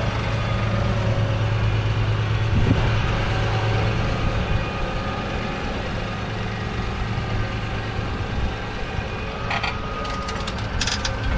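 Claas Arion 650's 6.8-litre six-cylinder diesel engine running steadily as the tractor pulls a Lemken reversible plough. About ten seconds in there are a few sharp knocks as the plough is lowered into the soil.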